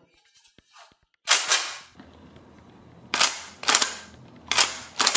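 Pump action of a Tokyo Marui KSG gas airsoft shotgun racked three times, each cycle a pair of sharp, loud clacks as the fore-end is pulled back and slammed forward.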